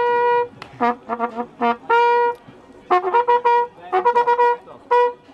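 Valveless trumpet playing a tune of short notes on only a few pitches, from its natural harmonics. There is a held note at the start, another about two seconds in, and a quicker run of notes in the second half.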